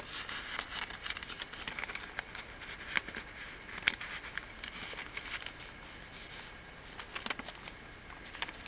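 Rustling and crinkling of stiff paper as a handmade paper journal's pages and a tucked-in card are handled and turned, with a couple of sharper clicks about three and four seconds in.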